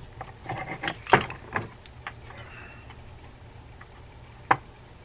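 Light metal clicks and clinks as the frame, pillars and screws of a vintage Ocean City 6051 saltwater reel are handled and fitted together, with a screwdriver brought to the frame. A cluster of clicks comes in the first couple of seconds, the loudest just after one second, then one sharp click about four and a half seconds in.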